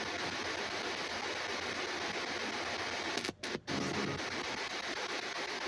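Spirit box radio scanner sweeping the band, giving steady static hiss. The hiss cuts out twice in quick succession a little past halfway, and a brief faint radio fragment follows.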